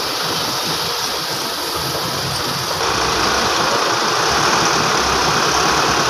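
Diesel engines of a Caterpillar E200 excavator and a tipper truck running steadily, growing louder about three seconds in.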